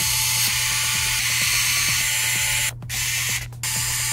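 Electric precision screwdriver running as it drives a laptop battery screw: one run of about two and a half seconds, then two short bursts, each starting and stopping abruptly.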